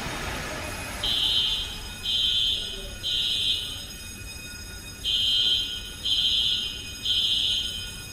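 Fire alarm sounder beeping in a temporal-three evacuation pattern: three high-pitched beeps about a second apart, then a pause, repeating. It is the alarm that accompanies the hangar's high-expansion foam system discharging.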